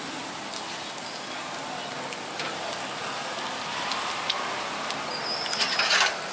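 Beef skewers sizzling on a grill: a steady hiss with scattered small pops, and a brief louder clatter near the end.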